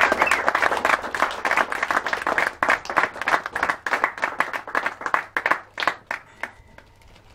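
A small group of people clapping, the applause thinning out and dying away about six seconds in.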